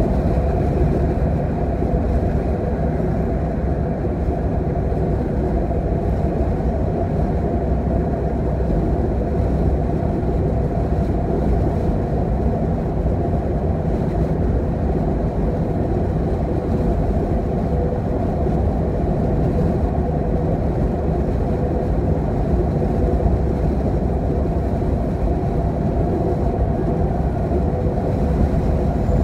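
Car driving at motorway speed, heard from inside the cabin: a steady, unchanging rumble of tyres and engine.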